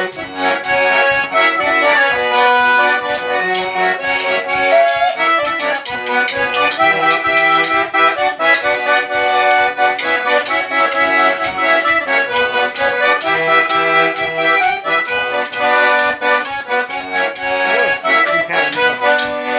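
Instrumental break of a sung Russian romance: a melody with chords over a steady rhythmic beat, with no singing.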